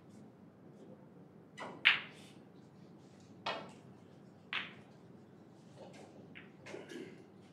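A few sharp knocks and clicks in a quiet room: the loudest about two seconds in, then two more about a second apart, and fainter ones near the end.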